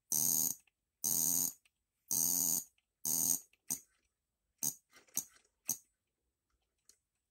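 The 12-volt buzz coil of a small model gasoline engine buzzing in four half-second bursts about a second apart, then a few short blips. This is the ignition being tried for spark after a loose connection was fixed.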